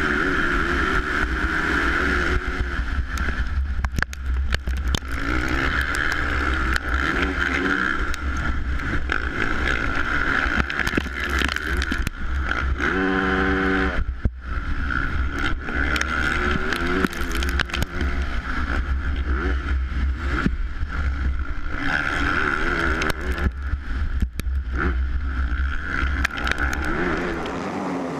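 Motocross bike engine running hard through a race start and the laps after it, recorded on the bike's onboard camera, with a heavy low rumble and many short knocks from the rough track. Near the end the low rumble drops away.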